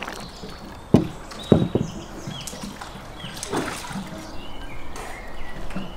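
Tomato sauce sloshing as it is spooned over meat in a pan, with two sudden dull thuds about a second in and half a second later. Short high chirps sound now and then.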